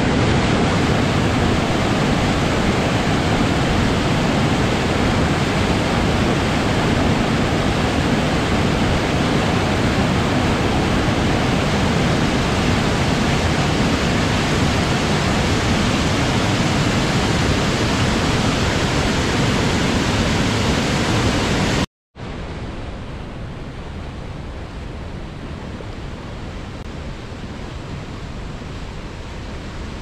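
Water pouring over boulders in a small waterfall: a loud, steady rush of white water. About 22 seconds in it cuts out for an instant and gives way to a quieter, steady rush of river rapids.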